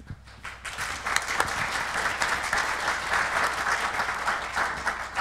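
Small audience applauding, building up over the first second and fading out near the end.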